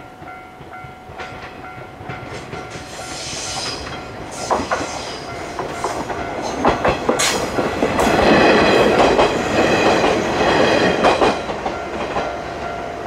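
Kounotori limited express train passing over a level crossing, its wheels clacking over the rail joints, building up and loudest about eight to eleven seconds in before easing off. Through it all a crossing bell keeps ringing in an even, repeating pulse.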